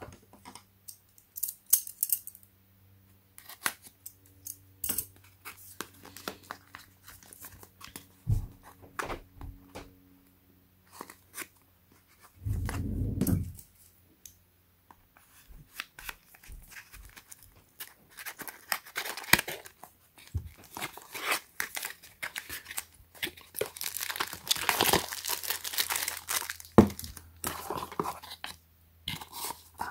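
Hands handling a small cardboard box: scattered light taps and scrapes on the card, then, over the last third, a busy stretch of tearing and rustling as the end flap is opened and the paper insert is pulled out. A brief low bump of handling comes near the middle.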